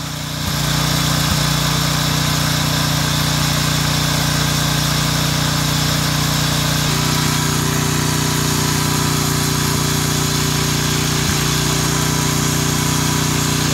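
Briggs & Stratton single-cylinder pressure-washer engine running steadily at governed full throttle with vegetable oil in place of motor oil, sounding smooth.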